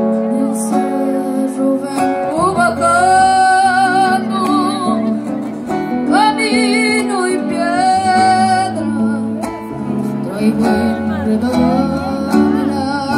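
Live band music: strummed acoustic guitars under a melody line held with vibrato, each phrase opening with an upward slide.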